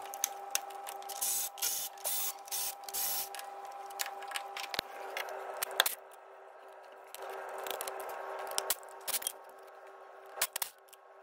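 Socket tool undoing the 13mm crank pulley bolts. It runs in several short bursts over the first few seconds, then there are scattered sharp clicks and metal taps. A faint steady hum sits under it.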